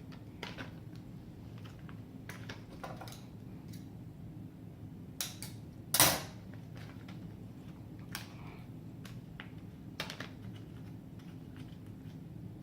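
Scattered light clicks and knocks of objects and packaging being handled, with one louder sharp knock about six seconds in, over a steady low hum.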